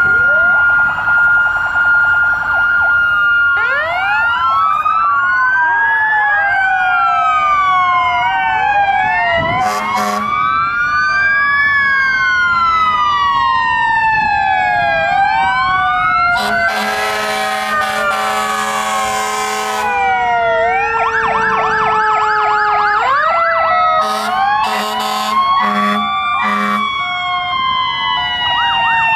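Several fire truck sirens wailing and yelping over one another as the trucks pass, with rising and falling sweeps overlapping throughout and a fast yelp just after the middle. A long air horn blast comes about two-thirds of the way in, and a few short air horn blasts near the end.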